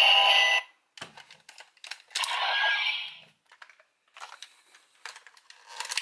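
Electronic music from a DX Progrise Key Connector toy's small speaker, with no bass, cuts off about half a second in. Scattered plastic clicks and rattles follow as the toy's parts are handled and folded, with a short noisy sound about two seconds in.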